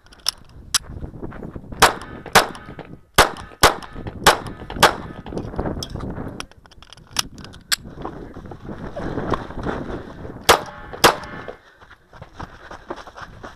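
Handgun shots fired in quick pairs about half a second apart, about a dozen in all, with a pause of a few seconds between the later pairs.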